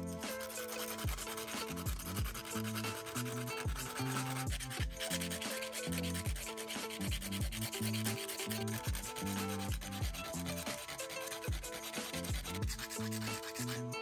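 Tip of a thin stick rubbed and scratched rapidly back and forth on sandpaper, in quick continuous strokes, with background music underneath.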